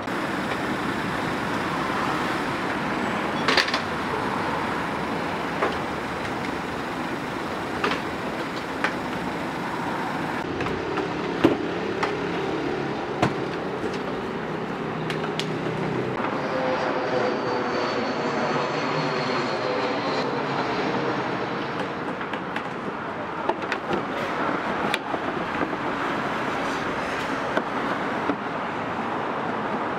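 Working din of a street food stall: a steady rushing noise with sharp clinks and clatters scattered through it.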